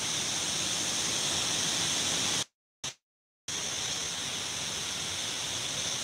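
Steady rushing of a waterfall's falling water, a hissy roar with no breaks in it. The sound cuts out completely for about a second midway, a dropout in the live-stream audio, then the same rush returns.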